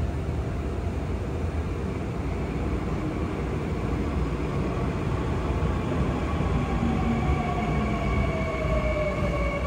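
Seoul Subway Line 2 electric train pulling into an underground station, a steady low rumble growing as it comes alongside the platform. In the last few seconds a whine falls in pitch as the train brakes, and higher steady tones grow louder.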